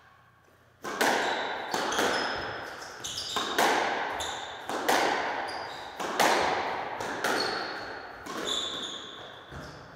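Squash rally: the ball is struck by the rackets and smacks off the walls about once a second, sometimes in quick pairs, each hit echoing round the court. It starts with the serve about a second in and stops shortly before the end, with short high squeaks of shoes on the wooden floor between hits.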